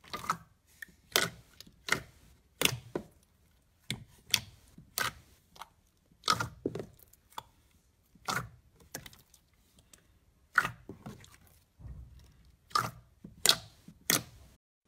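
Glossy slime popping and clicking as fingers poke and press into it: a series of sharp, wet pops, irregular, one or two a second.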